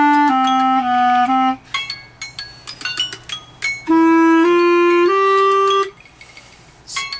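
Clarinet playing a finger-technique warm-up exercise: quick notes flicking back and forth between neighbouring pitches, breaking off after about a second and a half. A couple of seconds of light key clicks and stray short tones follow, then three longer held notes step upward before the playing stops.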